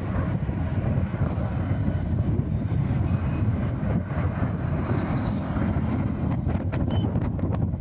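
Wind buffeting the microphone on a moving motorcycle, over a steady rumble of engine and road noise; a few short clicks near the end.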